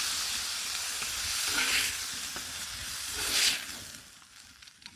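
Pork chops and hot dogs sizzling in a cast iron pan, swelling briefly twice, then dropping to a faint hiss near the end.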